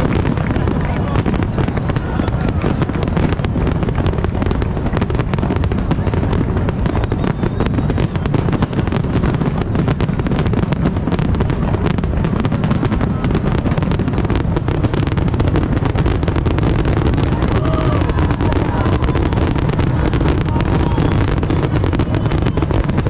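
Fireworks display heard from across the river: a dense, unbroken barrage of overlapping bangs and crackles over a constant low rumble.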